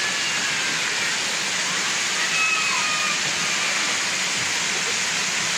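Steady rush of water pouring from pool fountains, mushroom-shaped umbrella fountains spilling into a shallow wading pool.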